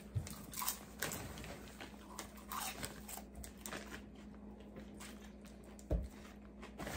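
Faint crinkling of a plastic popcorn bag as hands dig into it, mixed with the crunching of popcorn being chewed. A dull thump comes about six seconds in.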